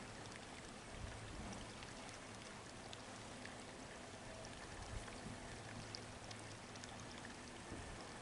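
Faint, steady outdoor background noise, a rushing hiss like flowing water, with a few light ticks scattered through it.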